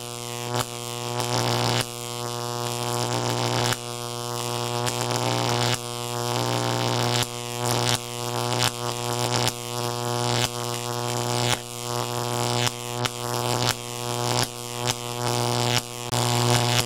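Electric-charge sound effect for a lightning-bolt weapon: a steady electrical buzz over a low hum that swells and snaps off again and again, with sharp crackling zaps about once a second, coming faster near the end.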